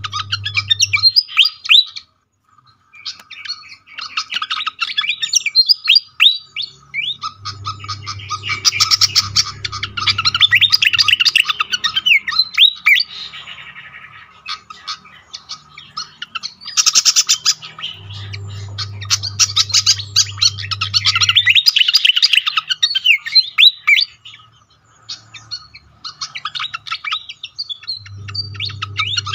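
Fantail calling: rapid runs of high chirps and squeaky notes in loud bursts, broken by short pauses, as used for a bird lure or training recording. A low steady hum sits under the loudest stretches.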